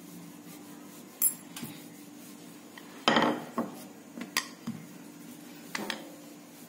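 Wooden rolling pin rolling out a ball of stiff dough on a granite countertop: scattered light knocks and clicks of the pin against the stone, the loudest about three seconds in, over a faint steady hum.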